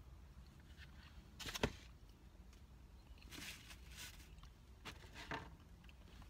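Faint eating sounds: a black plastic spoon scraping and tapping in a takeout bowl, three brief times, one with a sharp click, over a low steady background.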